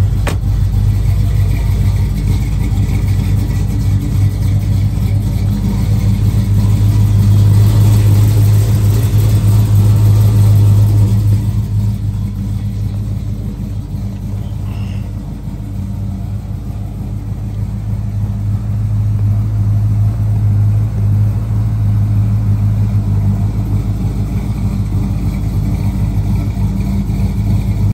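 1983 Chevrolet square-body pickup's engine idling steadily, a low, even hum that eases off in loudness for a few seconds in the middle.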